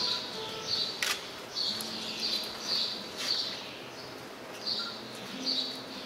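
A bird chirping, short high chirps repeated about twice a second with a pause around the middle, and two sharp clicks, about a second in and a little after three seconds.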